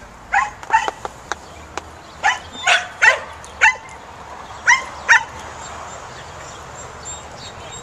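A Samoyed barking: about eight short, sharp barks, loosely in pairs, over the first five seconds, then only the steady outdoor background.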